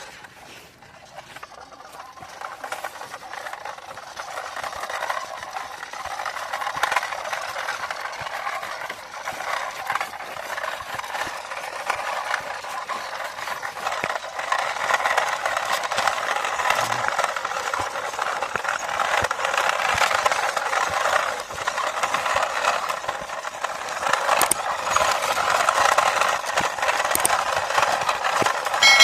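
Remote-control toy truck running: a small electric motor and gears whirring with plastic rattling and clicking, growing louder over the first several seconds and then holding steady.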